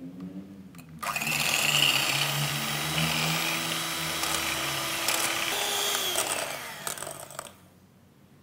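Electric hand mixer whipping cream with sugar in a glass bowl. It hums quietly at first, then runs loud from about a second in as the beaters churn the cream, its pitch shifting slightly partway through, and it stops about seven and a half seconds in.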